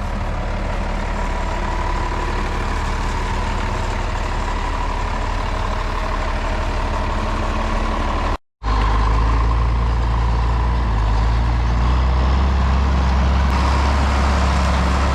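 Farm tractor engine running steadily, with a faint steady whine above the hum. About eight and a half seconds in the sound drops out for an instant, then the engine comes back louder and deeper.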